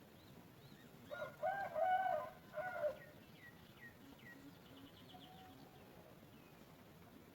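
A rooster crows about a second in, one drawn-out crow in three parts lasting about two seconds. Afterwards small birds give faint short falling chirps and a brief rapid trill.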